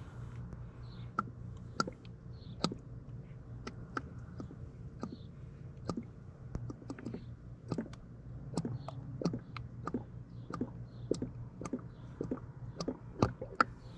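Engine oil glugging as it is poured slowly from a 4-litre jug into an ATV engine, heard as irregular little clicks and pops, a few a second.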